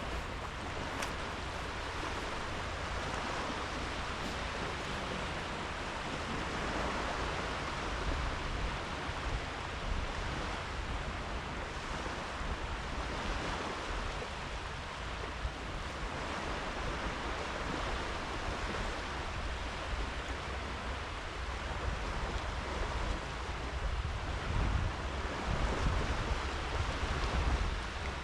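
Sea waves breaking and washing up on a sandy beach, the surf swelling and easing every few seconds. Under it, wind rumbles on the microphone in gusts, strongest near the end.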